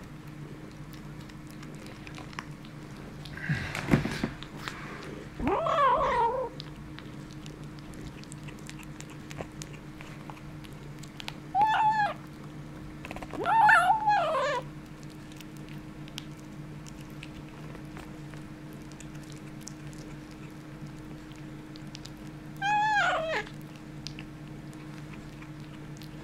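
Kitten making four drawn-out, wavering yowls with a bone in its mouth: the weird sounds of a kitten over a meat bone. A short rough, noisy burst with a sharp click comes about four seconds in.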